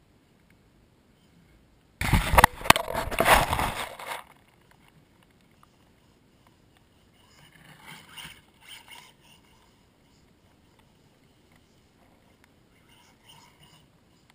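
Losi Mini 8ight RC buggy driving with the camera on board: a sudden, loud two-second burst of rushing, clattering driving noise that cuts off as the buggy stops, followed later by two faint short rustles.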